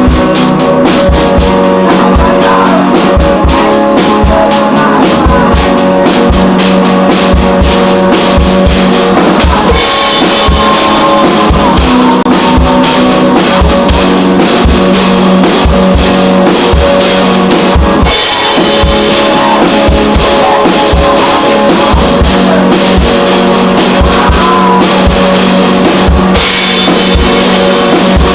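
A band playing a live rock cover: a drum kit keeping a steady beat on kick drum and snare under strummed guitar, with the cymbals coming up louder for two long stretches in the middle.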